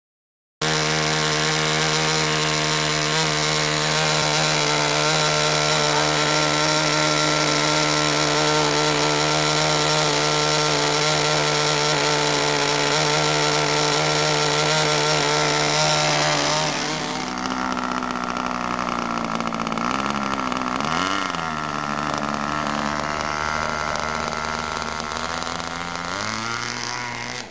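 RC model delta jet's small glow/gas engine running on the ground at a steady high speed. About two-thirds of the way through it drops to a lower speed, blips up and down a couple of times, and rises again near the end as the throttle is opened.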